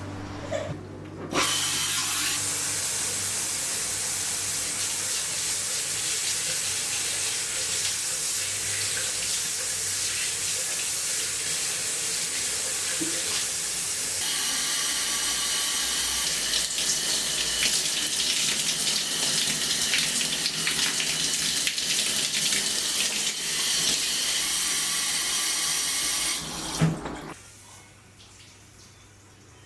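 Water running steadily, starting about a second in and shutting off abruptly near the end; the flow sounds brighter from about halfway through.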